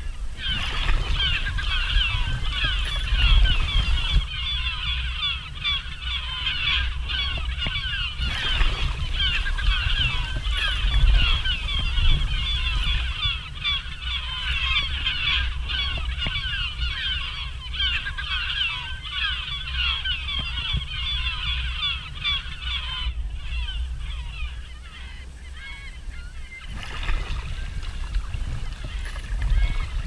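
A flock of gulls calling all at once, a dense, continuous clamour of overlapping cries that thins out briefly near the end and then picks up again, over a steady low wind rumble on the microphone.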